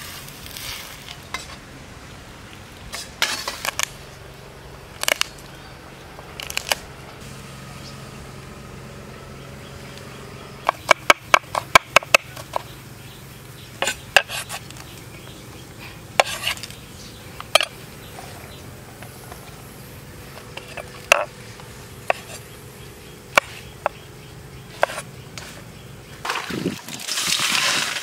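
Kitchen knife chopping on a wooden cutting board: scattered single knocks, with a quick run of about seven chops halfway through. Near the end a sizzle starts in the hot frying pan on the gas stove.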